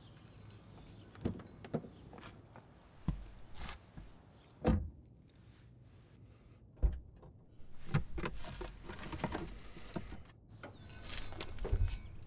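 Car doors opening and shutting on a sedan: a run of handle clicks and low thumps, the two loudest about five and seven seconds in, with rustling and more clunks of the car's doors and lid near the end.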